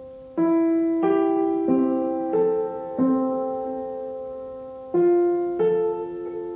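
Background music: slow piano notes and chords, each struck and left to ring and fade, a new one about every half second to two seconds.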